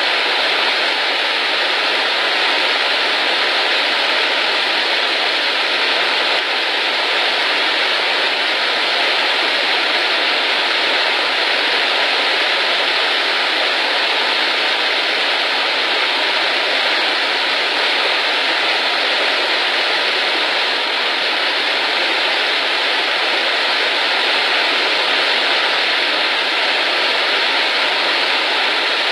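Waterfall running high with rainy-season water after days of rain: a loud, steady rush of falling water that never lets up.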